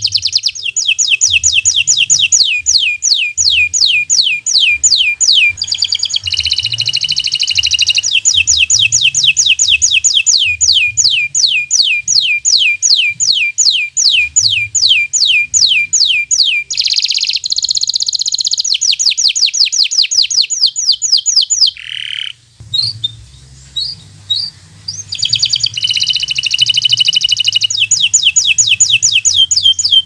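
Domestic canary of a local breed singing: long fast trills of high notes repeated evenly, each sweeping downward. About two-thirds of the way through it breaks off for a few seconds with only a few scattered short notes, then resumes the trills.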